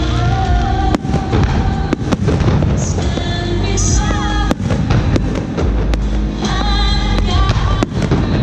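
Aerial firework shells launching and bursting, a rapid, irregular run of sharp bangs several times a second, with music playing underneath.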